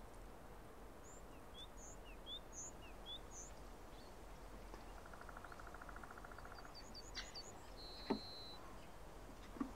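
Small birds calling over a faint steady hiss: thin high chirps alternating between two pitches about twice a second, then a rapid trill, a quick run of falling notes and a short held whistle. A single sharp tap comes about eight seconds in.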